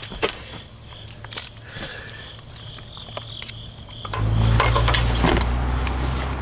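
Steady high-pitched insect chirring with a few scattered clicks; about four seconds in, a car engine starts and settles into a steady idle.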